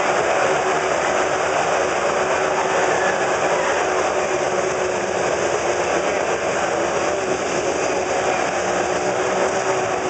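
Several motorcycles circling inside a steel-mesh globe of death, their engines running in one steady, unbroken loud drone.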